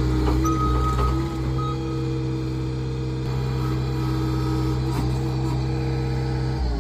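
Log splitter's engine running steadily with a constant pitch; about a second before the end its note drops.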